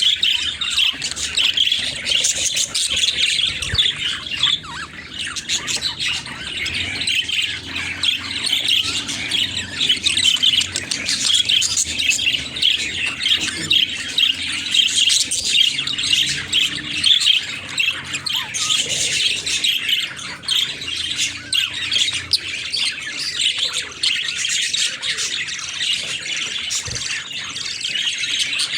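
Several budgerigars chattering and chirping without pause: a dense mix of short, high calls and warbles.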